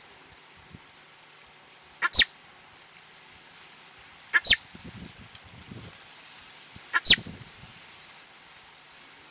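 A marmot giving three short, sharp whistled calls about two and a half seconds apart, each a quick double note: a faint one and then a loud one.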